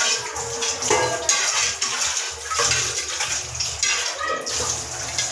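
Tap water running into a kitchen sink while a knife and dishes are washed under it, with scattered knocks of utensils.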